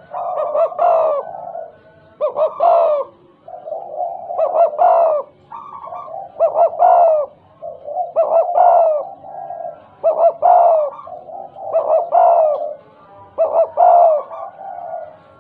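Spotted dove cooing in repeated phrases, about one every two seconds. Each phrase breaks into several quick, halting notes, the stuttering 'gagap' call style.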